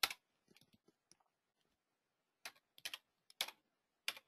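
Keys tapped one at a time on a computer keyboard: a keystroke right at the start and a couple of faint ones, a pause of over a second, then a handful more from about two and a half seconds in.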